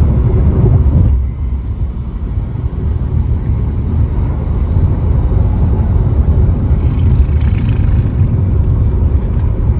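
Road and engine noise heard from inside a car moving at highway speed: a steady low rumble, with a brief rise of hiss about seven seconds in.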